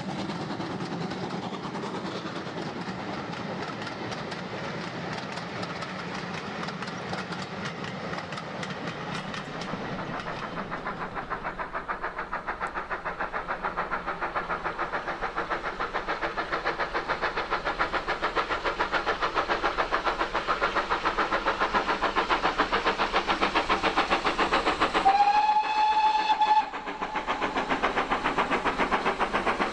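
GWR Manor class 4-6-0 steam locomotive 7828 Odney Manor at work. First its carriages run past on the rails. Then the engine approaches with a fast, even chuffing exhaust that grows louder, and gives one whistle blast of under two seconds near the end.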